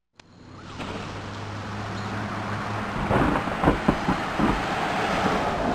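Street traffic noise fading in, with a vehicle engine's steady low hum, then irregular knocks and clatter from about three seconds in.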